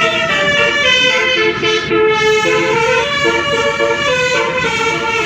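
Telolet bus horn, a set of musical trumpet horns sounding several notes together and stepping through a tune of short held notes.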